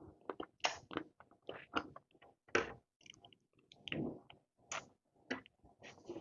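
A person eating close to the microphone: irregular wet smacks and clicks of chewing, a few per second, with brief louder mouthfuls.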